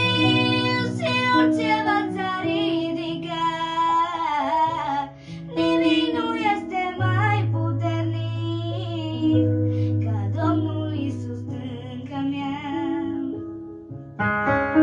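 A girl singing a devotional song in Romanian, accompanied by a Yamaha electronic keyboard playing chords over long held bass notes.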